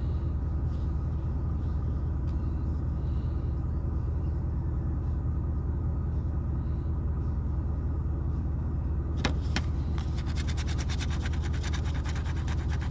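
Steady low rumble of an idling car heard inside the cabin. About nine seconds in, a coin starts scraping rapidly across a scratch-off lottery ticket in quick repeated strokes.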